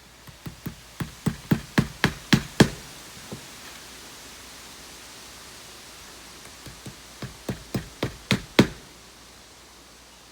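Hammer driving two nails: two runs of quick strikes, about three a second, each run starting with light taps and growing louder as the nail goes in.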